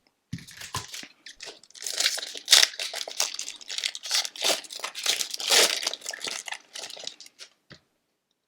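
A foil hockey card pack wrapper being torn open and crinkled by hand: dense, irregular crackling and tearing that cuts off abruptly near the end.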